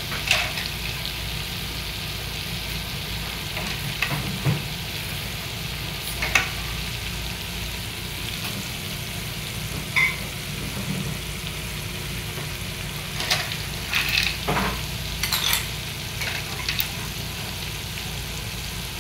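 A pot of freshwater snails in coconut milk simmering with a steady bubbling hiss, stirred with a metal spoon that clicks against the pot and the snail shells about ten times, once with a short metallic ring about ten seconds in.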